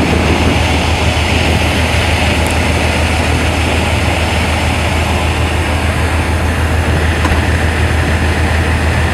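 Steady low drone of a tugboat's engines, with a constant rush of wind and water over it.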